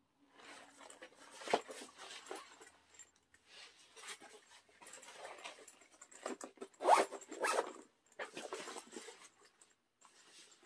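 Zipper on a Vans backpack run open and shut in several strokes, with the bag's fabric rustling as it is handled. The loudest strokes come about a second and a half in and about seven seconds in.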